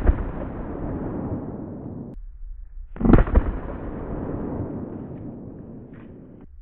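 12-gauge Winchester 1400 semi-automatic shotgun firing buckshot: one shot right at the start and another about three seconds in, each followed by a long rolling echo that fades away.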